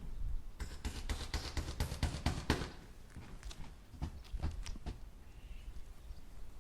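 Hammer striking nails into wood: a quick run of taps for about two seconds, then a few single blows spaced further apart, over a low steady rumble.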